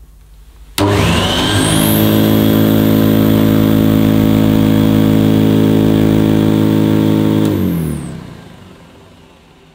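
1970s Electrolux 504 upright vacuum cleaner starting up for its first run: a click about a second in, then the motor spins up with a rising whine and runs steadily, the beater bars on its brush roll clearly audible. Near the end it cuts off and winds down with a falling whine.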